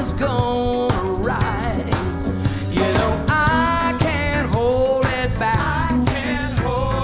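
Music: a song with a singing voice over a steady beat.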